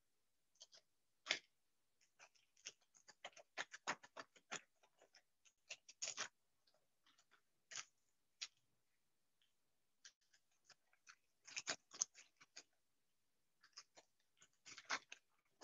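Faint, irregular crinkling and crackling of a plastic bag in short clusters, as the crushed cookie mixture is squeezed and scraped out of it into a metal bowl.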